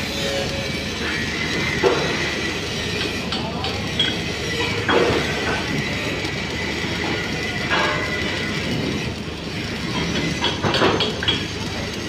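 Stick (SMAW) welding arc burning on steel while a fillet weld is laid: a steady crackling hiss with several sharper pops at irregular moments.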